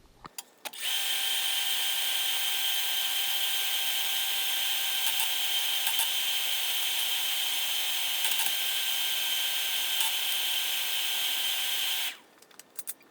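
Handheld electric power tool running at a steady, unchanging whine for about eleven seconds, starting about a second in and stopping near the end, with a few small clicks around the start and stop.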